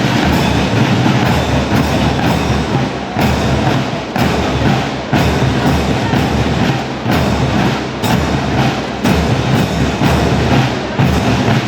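Loud music with a prominent percussion beat of regular strikes.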